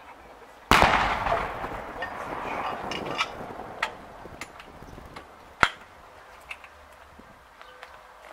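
A single loud bang about a second in that echoes away over about two seconds, not from the cannon in view. It is followed by scattered metallic clicks and clanks as the breech of a 70 mm breech-loading salute cannon is worked, the sharpest about halfway through.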